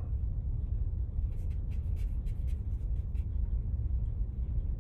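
Stick of fine charcoal scratching across drawing paper in a run of short strokes, most between about one and three seconds in, over a steady low rumble.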